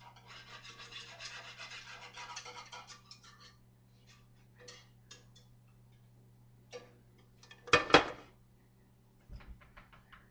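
Rapid scratchy scraping for about three seconds as gravy is worked through a strainer. Then scattered light clicks and, near eight seconds, a loud metallic clank as a skillet is set down on a gas stove's cast iron grate, followed by a few small knocks.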